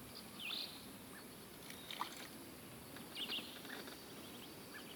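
Birds chirping faintly in short bursts, twice, over a low steady hiss, with a few soft ticks in between.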